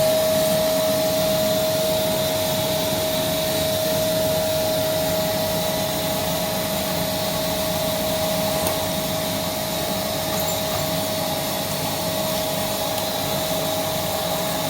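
Household vacuum cleaner running steadily: a constant motor whine over an even rushing hiss.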